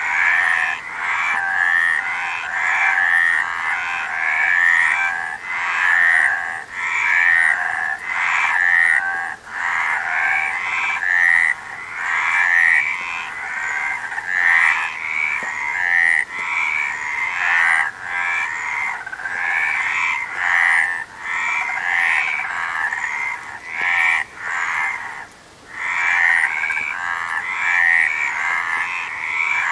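A chorus of frogs croaking, many calls overlapping in a dense pulsing band, the calling swelling and dipping every second or two.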